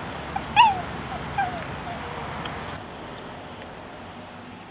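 A small dog whining, a few short calls that fall in pitch, all within the first two seconds.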